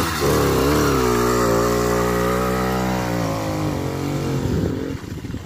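80cc two-stroke motorized-bicycle kit engine running under throttle: its pitch rises at the start, holds fairly steady while sagging a little, then the sound drops away about five seconds in.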